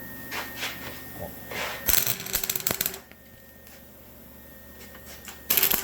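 Arc welder striking on cast iron: the arc crackles in a dense burst about a second long near the middle and starts crackling again near the end, with scattered ticks before. The unsteady, stop-start arc does not sound good to the onlooker.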